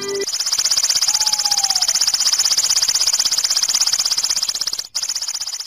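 The last notes of the acoustic guitar music die out just after the start. A high, fast-pulsing buzz from an outro sound effect follows, with a short falling tone about a second in. The buzz cuts out for an instant near the end, then carries on and begins to fade.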